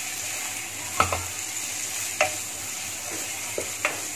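Onion-tomato masala sizzling in a frying pan as it is stirred with a plastic spoon, with a few light knocks of the spoon against the pan, about a second in, after two seconds and near the end.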